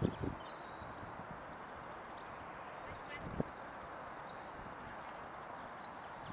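Park ambience: a steady wash of distant background noise, with small birds chirping high up, mostly in the second half. A few soft low knocks, one right at the start and one about three seconds in.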